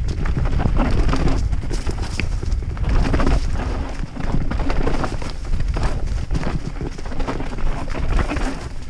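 YT Capra enduro mountain bike riding fast down a rocky dirt trail: tyres rumbling over stones and roots, with a continuous irregular clatter of the bike rattling over the bumps.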